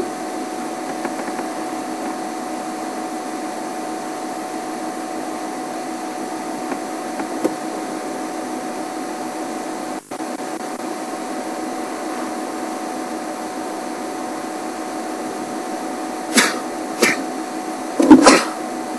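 A steady, motor-like hum with a constant drone that briefly cuts out about ten seconds in. Near the end come three short, loud knocks or bumps.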